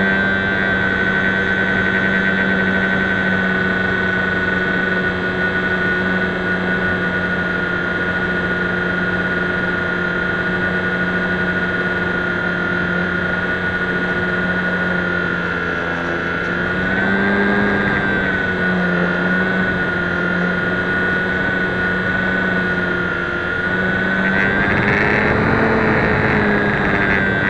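Electric motor and propeller of a HobbyZone Champ RC plane, heard from a keychain camera riding on the plane: a steady whine over rushing air, the pitch wavering briefly a little past halfway and again near the end. The small plane is laden with the 17-gram camera and can barely stay in the air.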